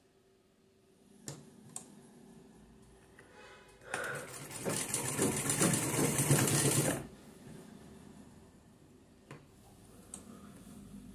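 Sewing machine running for about three seconds in the middle, stitching a seam through cloth, with a few sharp clicks before and after.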